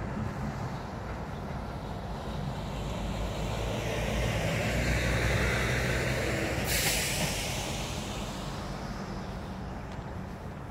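A vehicle passing by, its noise swelling and then fading away. A sudden short hiss cuts in near its loudest point.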